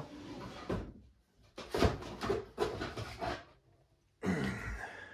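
Handling noises: a few knocks and rustles of objects being picked up and set down, with a brief near-silent pause before more rustling.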